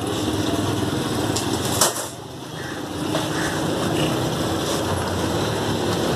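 Steady background noise of a butcher's shop, with one sharp knock about two seconds in.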